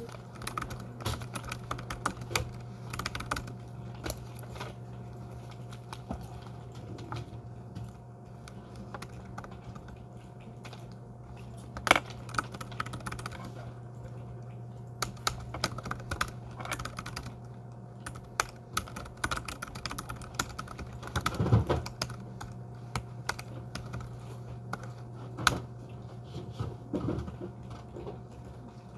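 Continuous typing on a scissor-switch (pantograph) keyboard: quick, uneven key clicks with a few louder strikes, over a steady low hum.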